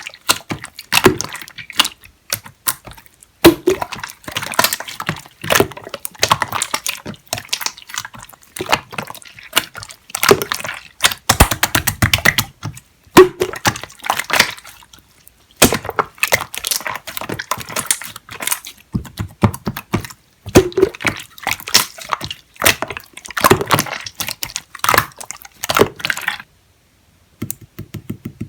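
Hands squishing, pressing and poking clear slime, giving dense runs of wet clicks and crackling pops in spells of a few seconds, with a short pause near the end.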